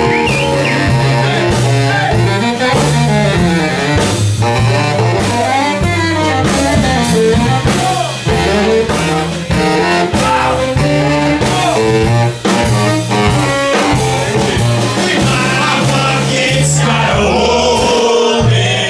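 Small jazz band playing live: trumpet and saxophones trade bending melodic lines over a walking double bass and drum kit.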